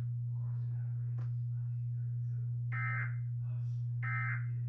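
NOAA Weather Radio's EAS/SAME end-of-message data tones: two short buzzy bursts of digital warble about a second and a quarter apart, signalling the end of the alert broadcast. A steady low hum runs underneath.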